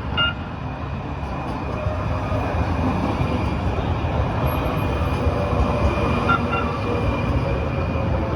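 Siemens S700 light rail car running along the track, heard from on board: a steady low rumble with a faint motor whine. A short double beep sounds right at the start and again about six seconds in.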